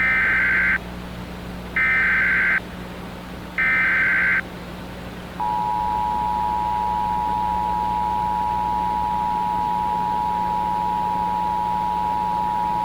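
Emergency Alert System broadcast: three short bursts of SAME header data tones, a shrill digital warble, about two seconds apart. About five seconds in, the steady two-tone EAS attention signal (853 and 960 Hz) starts and holds, warning that an emergency alert message follows. A low steady hum runs underneath.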